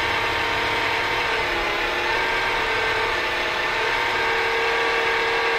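Keda 56-63 195Kv brushless motor driving a propeller in air through a simple gearbox, running steadily on about 11 V from a buck converter. A steady whine of several tones over air noise, with a slight pitch change about four seconds in.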